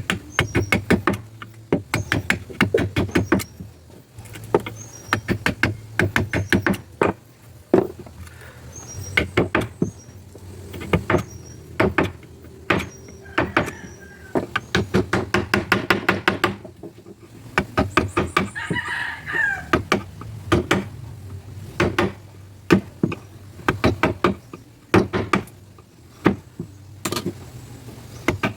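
A carving chisel driven into ironwood with a mallet: quick runs of sharp knocking strikes, a few a second, broken by short pauses.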